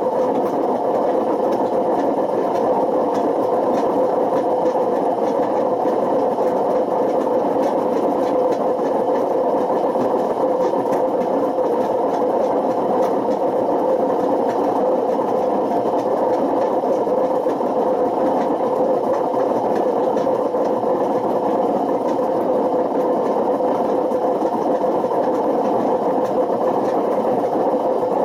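Panasonic NA127VB6 washing machine running with worn-out drum bearings: a steady, loud, rough noise with a constant hum in it, the sound of bearings that have failed.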